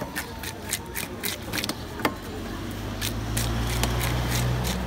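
Quick rasping strokes of a nail-studded wooden fish scaler dragged over a large katla carp's scales, several strokes a second, flicking scales off. A low steady hum comes in about halfway.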